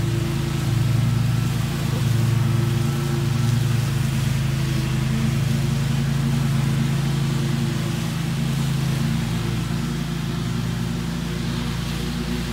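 Scag Tiger Cat II zero-turn mower running steadily while it cuts thick grass; its low engine note eases off about nine seconds in.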